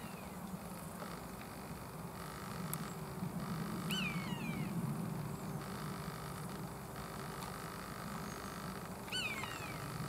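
Common buzzard giving its high, downward-slurred mewing call, about four seconds in and again near the end, each followed by a fainter second slur. A low steady hum runs beneath.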